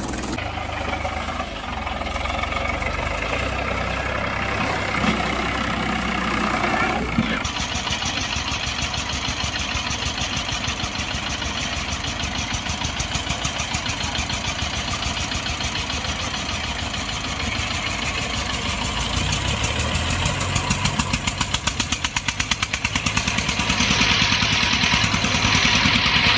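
Diesel tractor engine running. About seven seconds in the sound changes abruptly to a dense, fast engine chatter, and near the end it grows louder and brighter.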